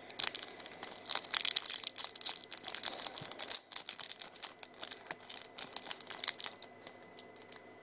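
Foil wrapper of a Pokémon TCG booster pack crinkling and tearing as it is ripped open, a dense crackle that thins out near the end.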